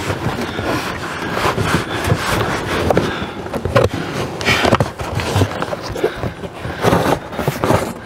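Cardboard packaging scraping and rustling against the trailer's roof edge, with irregular knocks and scuffs throughout.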